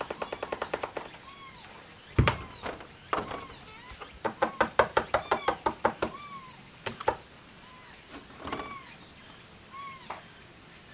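Kitten mewing again and again: about a dozen short, high mews, each rising and falling in pitch. Two spells of rapid tapping, about ten taps a second, come at the start and from about four to six seconds in, and a single thump a little after two seconds.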